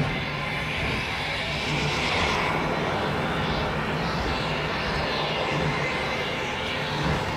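Soundtrack of a building projection-mapping show played over outdoor loudspeakers: a steady low drone under rushing, whooshing sound effects, one swelling about two seconds in.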